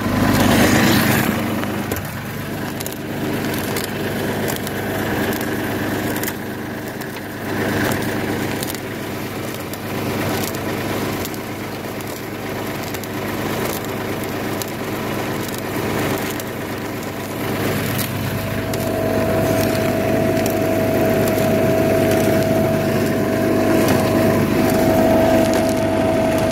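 A machine's mechanism running steadily, with crunching, grinding and scattered clicks as crystalline material is broken up and fed through it. A steady whine joins in about two thirds of the way through.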